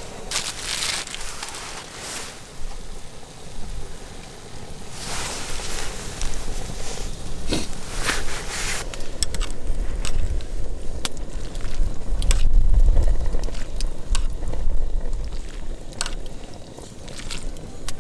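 Campfire crackling with sharp pops through the second half, along with bursts of rustling and a low wind rumble on the microphone.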